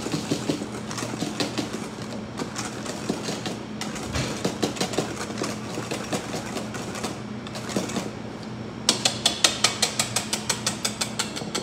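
Wire balloon whisk stirring lemon curd and whipped cream in a stainless steel bowl, the wires scraping and clicking against the bowl. Near the end the whisking speeds up into a fast, even run of sharp clicks, about eight a second.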